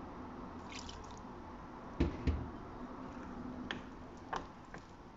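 Metal spoon stirring thick flour-and-water batter in a glass bowl, a wet sound with a few light clicks and two louder knocks about two seconds in.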